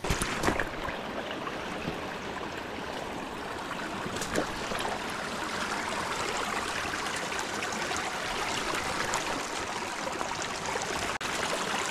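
Small rocky mountain stream running and trickling over stones, a steady rush of water, with a couple of brief knocks about half a second and about four seconds in.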